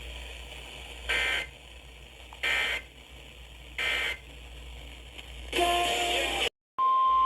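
Weather radio alert data bursts: three short screeching digital bursts about a second and a half apart, typical of the Emergency Alert System's end-of-message code, then a longer burst. After a brief dropout near the end, the steady 1050 Hz NOAA Weather Radio warning alarm tone starts.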